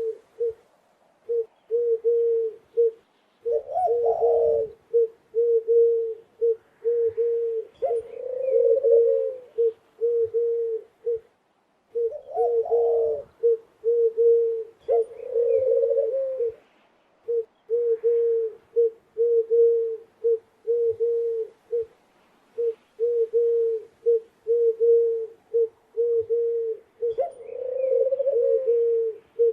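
Doves cooing: runs of short, even coos at about two a second, broken every few seconds by a longer, wavering coo that rises a little in pitch.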